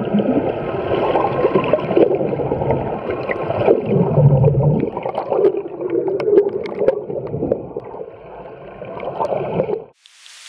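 Underwater recording beside humpback whales: wavering moans and whines over gurgling water and bubbles, with a lower moan about four seconds in. The sound cuts off abruptly near the end and is followed by a short hiss that swells and fades.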